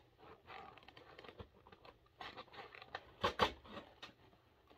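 Rustling and crinkling of a bead-bracelet kit's packaging and parts being handled, with a few sharp clicks and taps; the loudest rustle comes a little past three seconds in.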